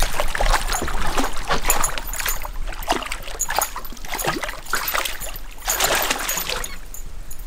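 Water splashing in irregular bursts as a hooked black bass thrashes at the surface.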